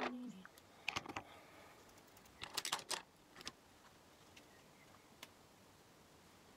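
Light clicks and taps of makeup compacts, palettes and brushes being handled: a couple about a second in, a quick cluster near three seconds, and a single click past five seconds.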